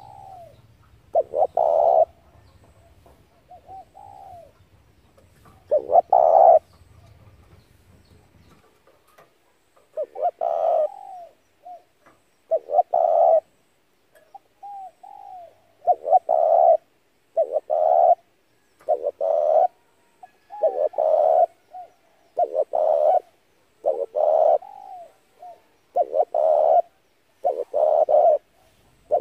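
Spotted dove cooing: a series of its short, husky phrases, sparse at first, then repeating about every second and a half. A faint low hum sits underneath for the first third.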